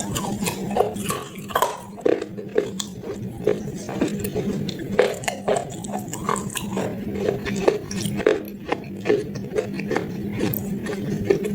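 Close-miked chewing and crunching of brittle baked-clay pot pieces: many sharp, irregular crackles, over a steady low hum.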